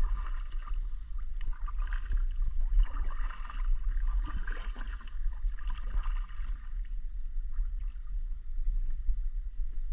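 Kayak paddle strokes: the blade dipping and water trickling and dripping off it, over a steady low rumble. The water sounds thin out about seven seconds in.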